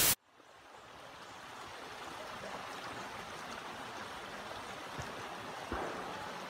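A brief burst of static at the very start, then a creek running over rock ledges fades in and flows steadily.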